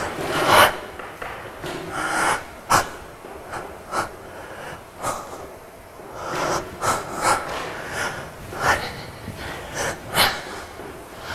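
A woman breathing audibly in short, sharp, irregular breaths, about a dozen in a row, unevenly spaced.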